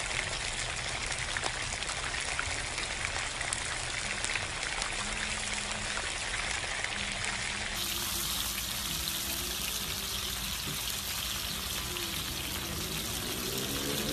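Sliced steak pieces and garlic sizzling in butter and meat juices on a hot platter, a steady crackling sizzle.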